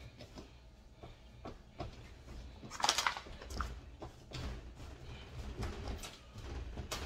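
Hands working pizza dough on a round pizza peel, giving scattered light taps and knocks, with one louder brushing noise about three seconds in.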